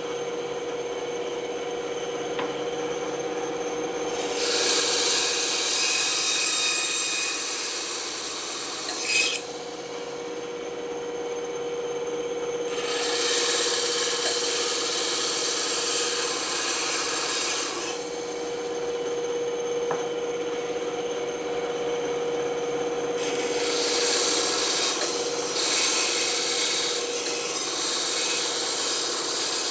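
Band saw running with a steady motor hum, its blade cutting wood in three spells of about five seconds each, the cutting hiss rising over the hum each time.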